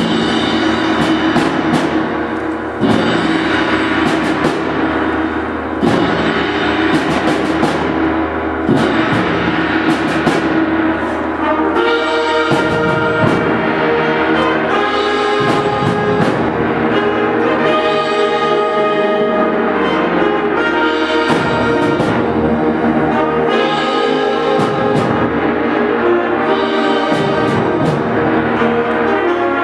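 Concert band playing: brass and woodwinds with timpani and percussion strikes, starting suddenly at full volume.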